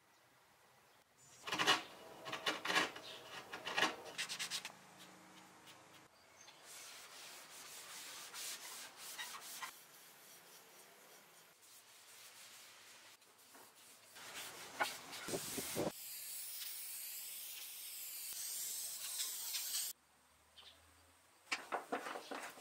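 A run of woodworking sounds: rhythmic hand-sanding strokes rubbing on wood, then quieter brushing and scraping, a steady high hiss for a few seconds, and a few screwdriver clicks near the end.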